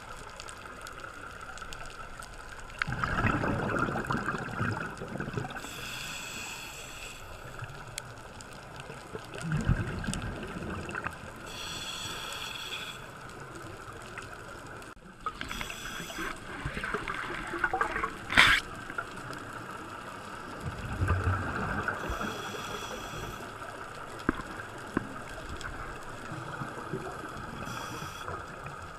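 Scuba diver breathing on a regulator underwater: hissing inhalations alternate with bubbling exhalations every five or six seconds. A brief sharp sound comes about two-thirds of the way through.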